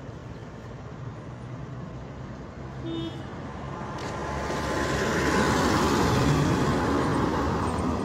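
A road vehicle passes close on an unpaved road. Its noise swells from about four seconds in, peaks, then fades, over a steady low engine hum. A short beep sounds about three seconds in.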